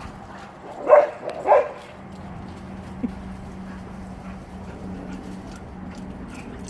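A dog barks twice, about a second and a second and a half in, over a steady low hum.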